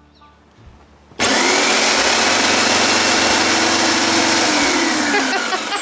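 Jigsaw mounted under a table, switched on and running unloaded: its motor and reciprocating blade start suddenly about a second in with a quickly rising whine, run steadily, then begin to wind down near the end.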